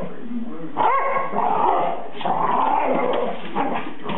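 A dog vocalising in a few drawn-out growling barks, the first rising in pitch about a second in.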